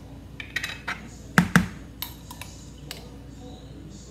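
A glass jar of whole-grain mustard being opened and handled: clicks as its lid is twisted off, then two sharp knocks about a second and a half in, and light clinks of a spoon against the jar.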